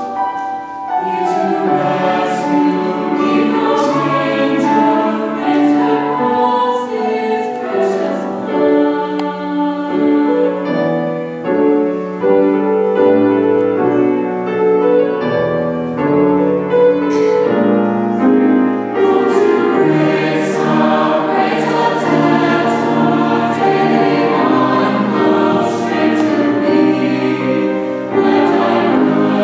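Chamber choir singing a hymn in multi-part harmony, held chords shifting from note to note.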